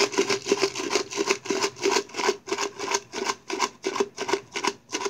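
Chips rattling in a can being shaken rapidly and steadily, about five shakes a second.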